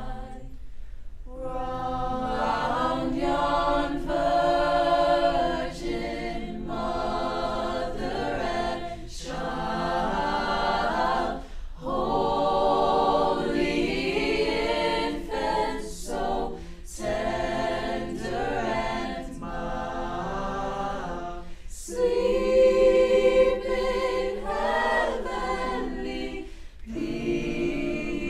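A choir singing a cappella in sustained phrases, with brief breaks between phrases and a louder swell a little past the middle.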